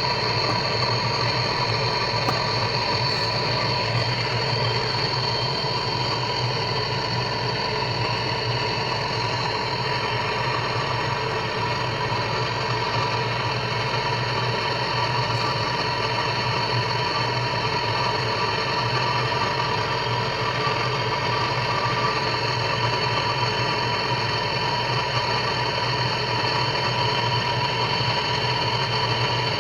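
Electric heat gun running steadily, its fan motor blowing hot air onto a stuck washing-machine part to free it.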